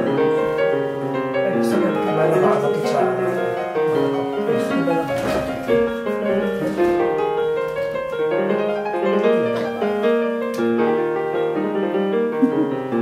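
Background piano music: a gentle piano melody of held notes moving in steps.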